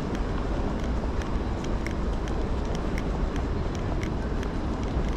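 Rainy city street ambience: a steady rumble and hiss of traffic, with faint sharp ticks about three times a second.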